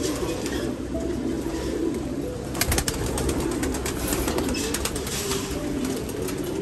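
Many racing pigeons cooing steadily together in a wire loft. About two and a half seconds in, a few seconds of quick clicks and flutters, with wings flapping against the cage wire.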